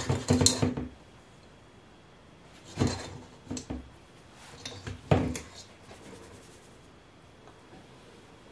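Baking soda being sifted from a plastic tub through a wire-mesh sieve into a stainless steel mixer bowl. The tub and sieve knock and rattle against the bowl in three short bouts: at the start, about three seconds in and about five seconds in. Fainter dry ticking follows.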